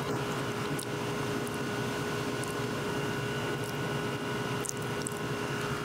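Steady mechanical hum with a held tone, joined now and then by faint short ticks.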